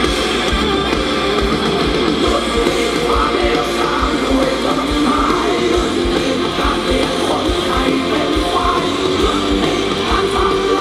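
Live rock band playing through a concert PA, heard from within the crowd: electric guitars over a steady kick-drum beat.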